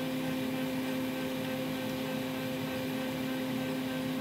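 Fuji Xerox DocuPrint P205 b laser printer's drive motor running with a steady hum, spinning the toner cartridge in refresh mode to shake and mix the toner.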